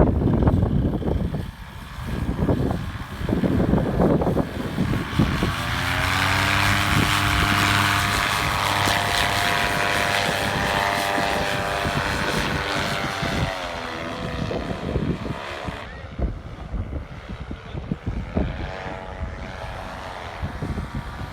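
Gusts of wind buffeting the microphone, then a paramotor's engine and propeller droning steadily for about eight seconds, its pitch dropping as it fades. Wind gusts buffet the microphone again after it.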